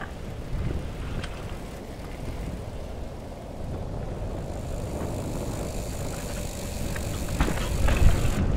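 Mountain bike riding over a rough, stony moorland trail, heard from the bike-mounted action camera: a steady low rumble of tyres and rattling frame, with knocks and clicks from stones, the loudest jolts near the end.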